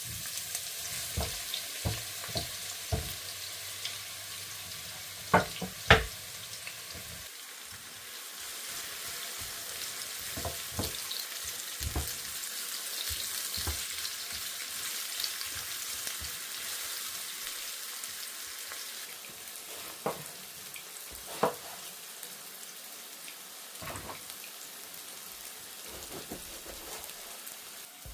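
Food frying in hot oil in a pan: a steady sizzle, with scattered sharp knocks of a utensil stirring against the pan, the loudest about six seconds in.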